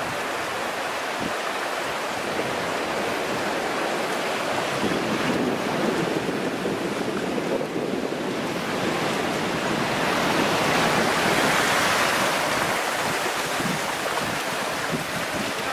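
Steady noise of surf and wind on the microphone, swelling a little about two-thirds of the way through.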